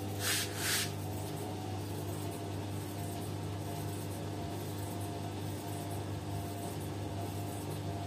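Beko front-loading washing machine running a wash cycle, its drum motor humming steadily with a few constant tones. Two brief hisses sound near the start.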